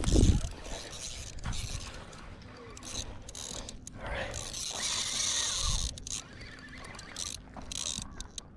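Fishing reel ratcheting and whirring as a hooked carp pulls line off against the drag and is reeled back, with a low thump of handling right at the start.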